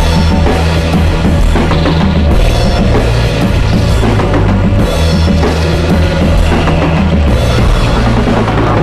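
Music with a drum kit and a bass line.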